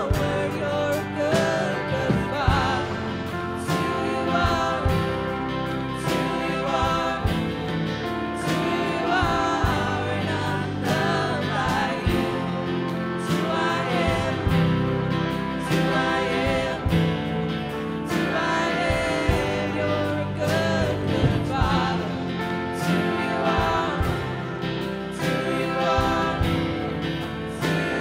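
Live worship band: a woman singing lead over strummed acoustic guitar, electric bass and a drum kit keeping a steady beat.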